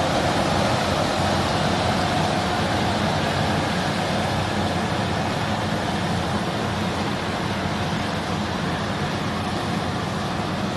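Massey Ferguson T5 combine harvester running steadily while harvesting: a dense, continuous mechanical drone over a low engine hum, easing slightly quieter toward the end.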